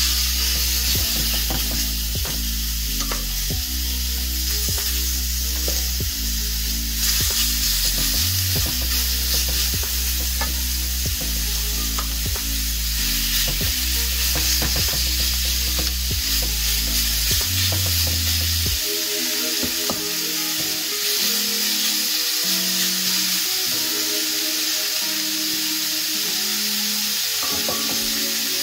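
Cubes of seasoned beef stew meat sizzling as they sear in a hot oiled frying pan, the sizzle growing louder as more pieces go in. Background music plays along, its bass line dropping out about two-thirds of the way through.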